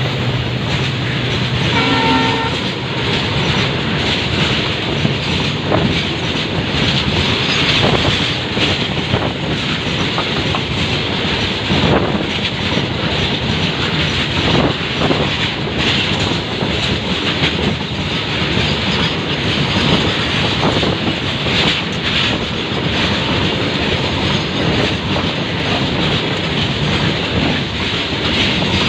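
Freight train of goods wagons passing close by at speed: a steady, loud rush of steel wheels on rails, with the wheels clattering over the rail joints.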